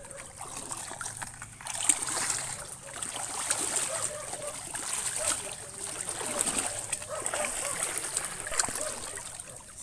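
Shallow water splashing and sloshing irregularly as people wade and grope by hand for mud crabs. It swells up about two seconds in and goes on unevenly, with scattered small splats and drips.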